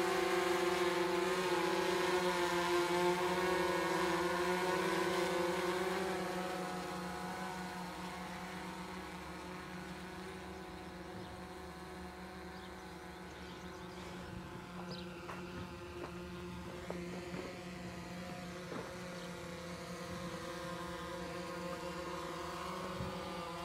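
Quadcopter drone's propellers buzzing steadily as it hovers, loud for about the first six seconds, then fainter as it flies farther off.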